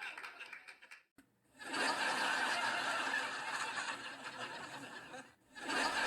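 A group laughing together, the sound cut off abruptly to silence about a second in and again near the end before starting up again.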